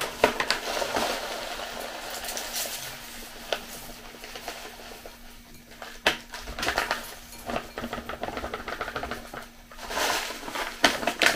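Dry apple cereal flakes poured from a packet into a glass bowl, a light rattling patter of many small ticks with the packet rustling, and a single sharp tap about six seconds in.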